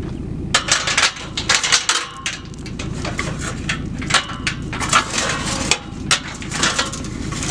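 Irregular crunching, cracking and knocking over a steady low rumble, like a vehicle engine running.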